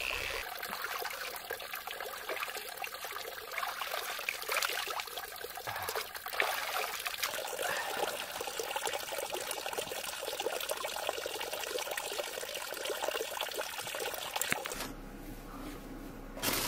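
Water trickling and splashing steadily; it cuts off near the end, leaving a quiet low hum.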